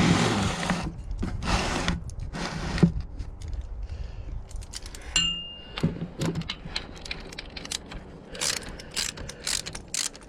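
Spanner and metal parts clinking and scraping while the gearbox drain plug is being undone, with handling noise in the first few seconds. One clear ringing metallic ding comes about five seconds in, followed by a run of small clicks and taps.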